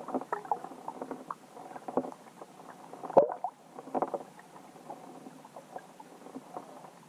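Underwater sound picked up by a submerged camera on a rocky bottom: irregular clicks, crackles and faint gurgles, with a sharp knock about three seconds in and another cluster of clicks about a second later.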